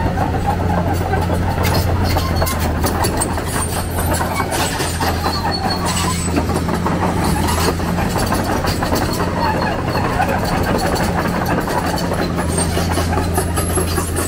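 Heavy diesel machinery running steadily: a constant low engine hum with a continuous metallic clatter and rattling over it.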